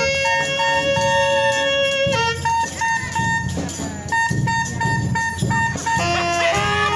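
Street brass band playing: horns hold a long note for the first couple of seconds, then play shorter repeated notes over a pulsing low bass line.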